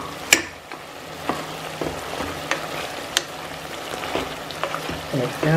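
Mutton curry for biryani sizzling in a metal pot as a spatula stirs it. Sharp scrapes and knocks of the spatula against the pot come about once a second, the loudest within the first half-second.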